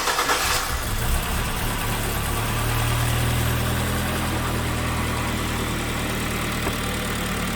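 Freshly rebuilt Kia Sportage 3 G4KD 2.0 four-cylinder petrol engine on its first start after overhaul: the cranking ends about half a second in as the engine catches, then it settles into a steady idle.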